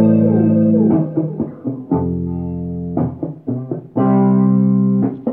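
Guitar played through a heavy delay effect: notes struck about once a second, each ringing on and repeating under the next so that the echoes pile up.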